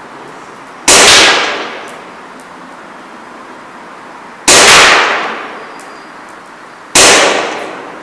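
ASG CZ P-09 gas blowback airsoft pistol firing three single shots a few seconds apart. Each sharp crack echoes for about a second in a large empty hall.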